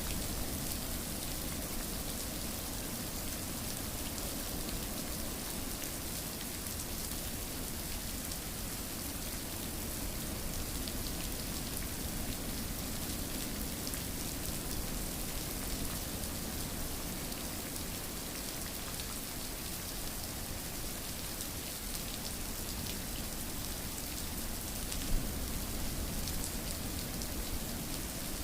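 Steady rain falling, an even hiss of many small drops, with one brief louder drop-like tick near the end.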